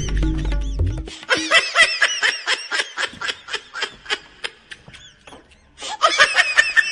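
High-pitched snickering laughter in quick, evenly spaced 'he-he' pulses, about five a second. It breaks off about five seconds in and starts again near the end. Music with a heavy bass stops about a second in.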